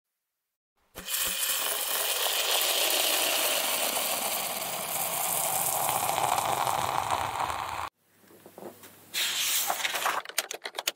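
Marker scratching across paper as lines are drawn, a steady dry scratch that stops abruptly, then shorter scratches and a quick run of clicks near the end.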